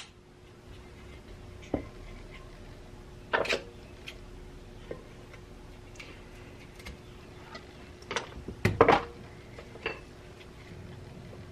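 Scissors snipping through old rope in a helmet's suspension liner, heard as scattered sharp snips and clicks with handling rustles, the loudest about three seconds in and a cluster near eight to nine seconds in. A faint steady hum runs underneath.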